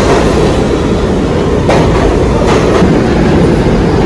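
New York City subway train pulling alongside the platform: a loud, steady rumble of steel wheels on the rails, with a few sharp clacks about halfway through.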